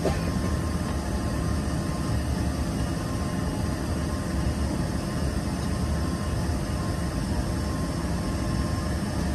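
Steady low hum and rush of air inside the cabin of an Embraer ERJ-145 regional jet before departure.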